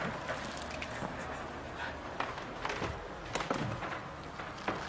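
A few scattered light knocks and clicks as a wooden cupboard door in a small room is opened and someone moves about.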